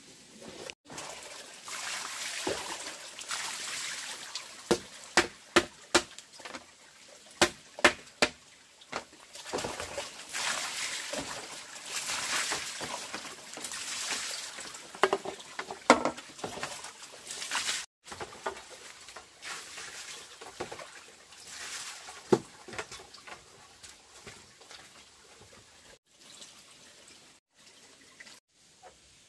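Water scooped from a plastic basin and poured out, splashing onto a bamboo-slat floor in several stretches, with sharp knocks now and then as the scoop and basins are handled.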